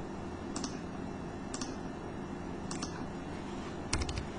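Computer mouse clicking a handful of times, sharp single clicks about a second apart and a quick double click near the end, over a steady faint room hiss.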